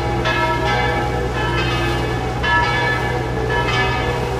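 Church bells ringing, repeated strikes whose tones overlap and slowly fade, a fresh strike about two and a half seconds in, over the steady low drone of the boat's engine.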